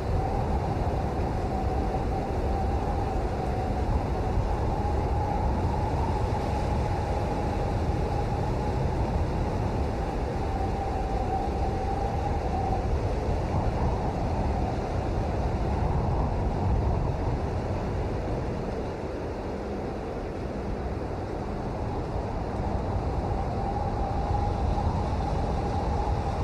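Steady heavy rain: a dense, even hiss with a deep rumble underneath. A faint steady hum sits in the middle, fading out about halfway and returning near the end.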